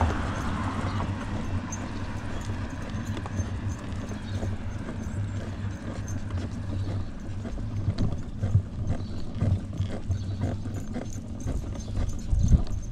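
Footsteps on a paved sidewalk at a walking pace, over a low steady rumble, with one sharper knock near the end.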